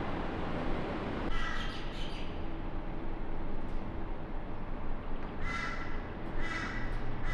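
Steady jet aircraft noise that cuts off about a second in. A bird then calls several times, each call about half a second long, over a faint low rumble.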